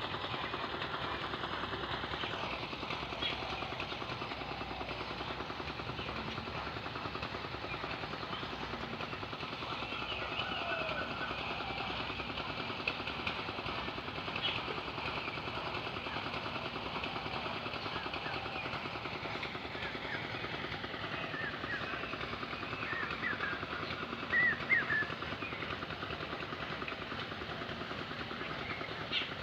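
Birds chirping in short calls, most of them near the end, over a steady, rapid pulsing drone.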